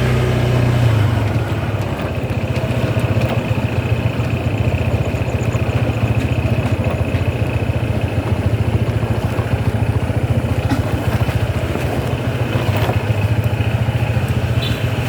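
Car engine running with a fast, steady rattling pulse: the strange noise that is put down to a loose fan belt.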